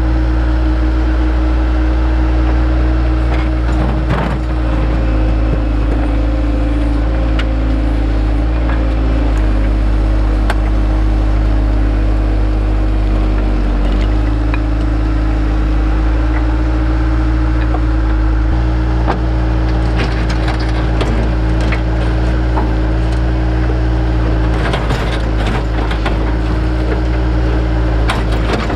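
A machine's engine running steadily under load, its pitch dipping briefly about halfway through, with scattered knocks and clatter of broken rock being dug.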